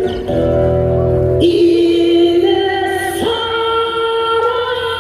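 Music with singing: long, held choir-like vocal notes over sustained chords, the harmony shifting twice.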